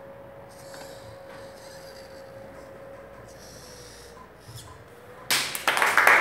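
Hobby servo motors of a small Arduino-driven robotic arm whirring faintly as the arm moves, in short on-off spells. About five seconds in, a group of students breaks into loud applause.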